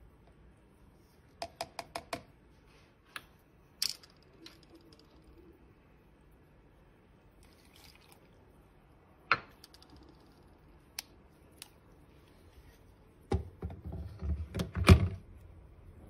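Sharp metal clinks and taps: a spoon knocking against the rim of a Turkish coffee pot as ground coffee goes in, four quick taps early and single clicks after. Near the end comes a louder run of knocks and clatter as the pot is seated in the electric coffee maker's base.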